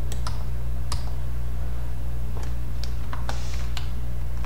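Computer keyboard being typed on: scattered single keystroke clicks, with a quick run of keystrokes about three seconds in, over a steady low hum.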